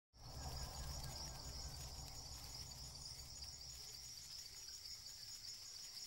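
Faint rainforest ambience: a steady, high-pitched insect chorus over a low rumble that eases after the first few seconds.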